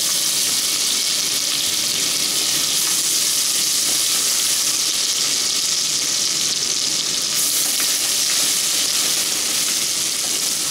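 Ginger-garlic paste and sliced onions sizzling in hot oil in a steel pot, a steady hiss, while being stirred with a silicone spatula.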